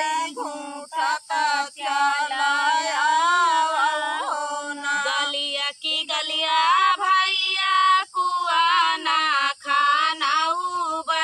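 Women singing a dhaan ropai kajari, a village rice-transplanting folk song, in long drawn-out phrases with wavering held notes and short breaks for breath.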